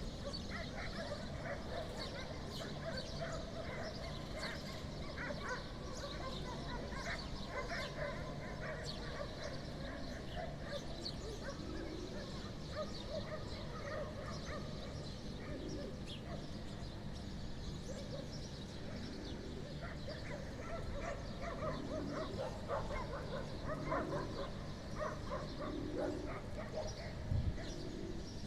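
Animal calls: many short, high bird chirps throughout, joined about halfway through by a lower call repeated every couple of seconds, over a steady low hum.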